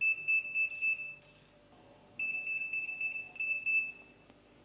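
Electronic oven beeper sounding its preheat-complete signal: a single high-pitched tone pulsing rapidly, in two runs with a pause of about a second between them.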